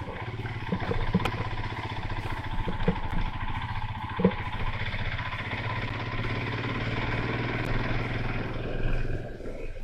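A vehicle engine running steadily with an even low pulse, and a few short knocks and rattles from the vehicle about one, three and four seconds in.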